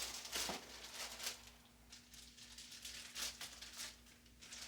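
Faint rustling and crinkling of paper packaging being handled while a boot box is unpacked, in several short separate rustles.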